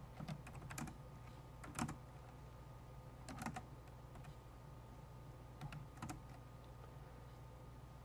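Computer keyboard keystrokes: about seven separate key presses in irregular clusters, the loudest a little under two seconds in, over a faint steady low hum.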